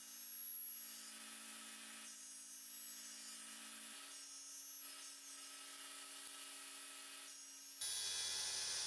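Small bench machine's circular cutter spinning with a steady hum while a thin wood strip is pushed into it again and again to cut notches. Each cut brings a short burst of high-pitched cutting noise, about four in all, and the sound turns louder and fuller near the end.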